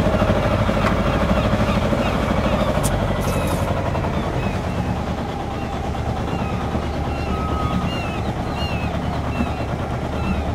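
Sailing yacht's auxiliary engine running steadily under way, a low pulsing rumble, with gulls calling now and then over it.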